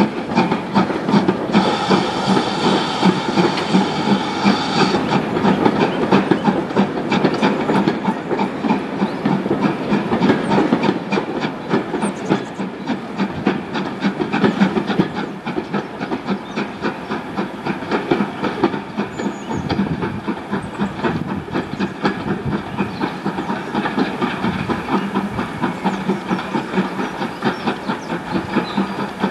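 Steam locomotive pulling a train of coaches away, with a steady run of exhaust beats and the coach wheels clicking over the rail joints and points. A burst of hiss for a few seconds near the start.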